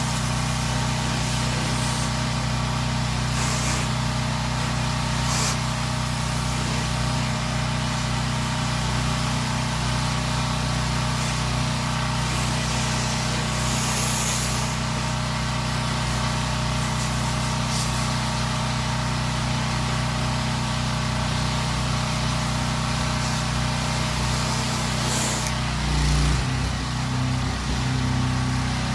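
Small gas engine of a pressure-washing rig running steadily under a hiss of spraying water. Near the end its note wavers and shifts briefly.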